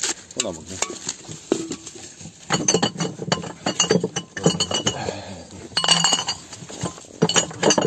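Empty green glass beer bottles clinking and knocking against each other as they are pulled from a wooden box and dropped into a cloth sack, with clusters of bright ringing clinks about two and a half to three and a half seconds in and again near six seconds.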